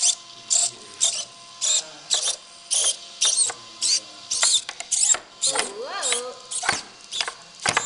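3D-printed Vorpal hexapod robot's servo motors whirring in short, regular bursts, a little under two a second, as its legs move.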